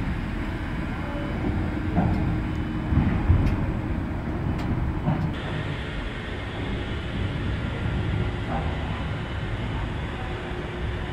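Rhaetian Railway Ge 6/6 II electric locomotive moving slowly: a steady low rumble and hum, with a few sharp clanks in the first half.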